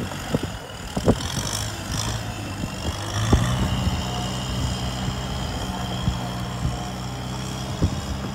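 Kubota M108S tractor's diesel engine running steadily under load as it works through deep mud ruts, with a few short knocks and clanks. The engine note grows stronger about three seconds in.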